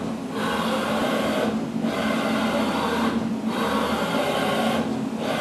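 Fadal CNC 88HS vertical machining center running a plotting program, its axis drives whirring steadily as the marker in the spindle draws the picture line by line. The sound dips briefly about every 1.7 seconds as each pass ends.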